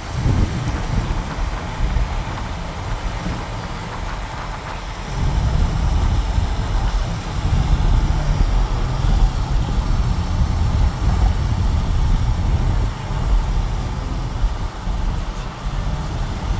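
Low, gusty rumble of storm wind and vehicle noise heard from inside a car, growing louder about five seconds in.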